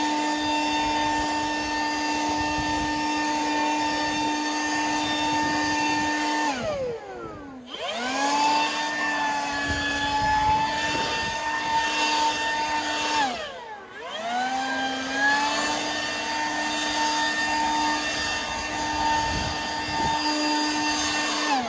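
Handheld leaf blower running flat out with a steady whine. The throttle is let off twice, about a third and two-thirds of the way through: each time the pitch sinks, then climbs back as it spins up again. It winds down at the end.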